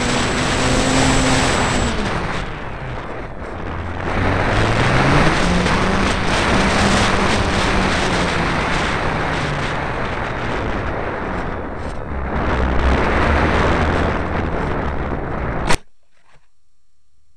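Wind rushing over the onboard camera's microphone of a Diablo flying wing in flight, with its motor and propeller whining and gliding down and back up in pitch as the throttle changes. Near the end a sharp crack, after which only a faint hum remains.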